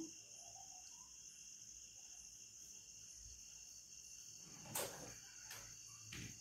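Near silence with a faint, steady, high-pitched trill in the background. Two brief soft noises come near the end, about a second and a half apart.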